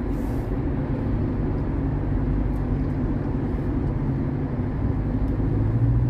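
Road noise inside a moving car's cabin: a steady low rumble of tyres and engine at highway speed, with a low drone that grows louder near the end.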